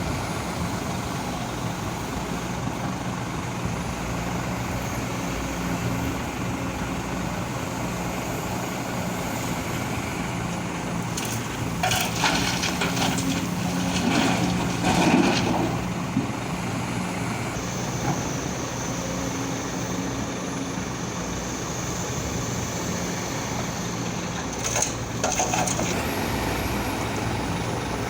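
Excavator's diesel engine running steadily under work, with bursts of scraping and clatter from the bucket working earth and rock, loudest about halfway through and again briefly near the end.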